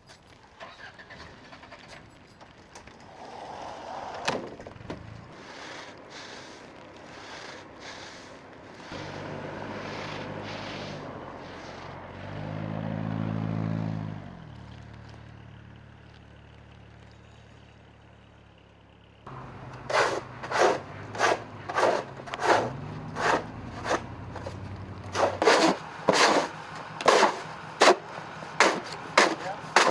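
A vehicle engine hums and swells briefly as it passes. Then, after a sudden change, comes a steady run of crunching steps through snow, about two a second, over a low engine hum.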